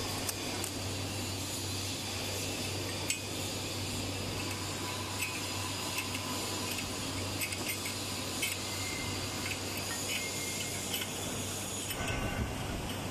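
Scattered light metallic clicks and clinks from a rubber gasket ring being pressed into a metal double-flange dismantling joint, the parts knocking together, over a steady hum and hiss. Near the end, tie rods clink against a flange amid some low handling rumble.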